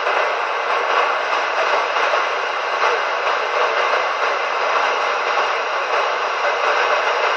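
Loud, steady static hiss from a Galaxy DX 949 radio's speaker, with no voice coming through.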